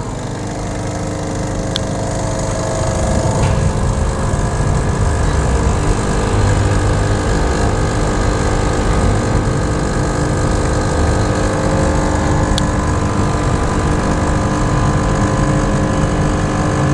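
Gemilai CRM 3018 espresso machine's vibratory pump running while it pulls a double espresso shot: a steady buzzing hum that grows louder over the first few seconds, then holds level.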